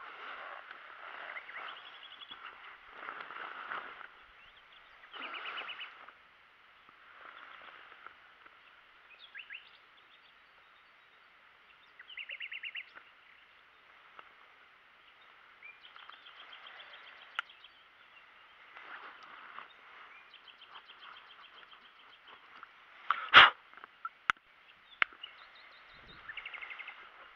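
Birds calling outdoors in short, quick trills that repeat every few seconds, over soft rustling of the handled wet unhooking mat. A single sharp knock about 23 seconds in is the loudest sound, followed by a couple of faint clicks.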